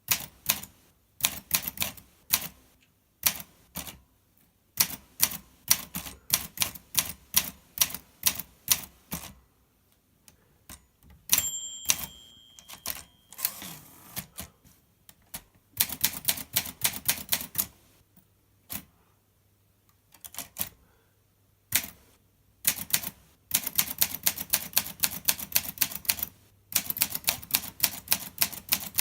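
Olympia SM2 portable typewriter being typed on: runs of quick key strikes in bursts with short pauses between them. About eleven seconds in, a clear ringing tone sounds for about two seconds, followed by a brief rasp.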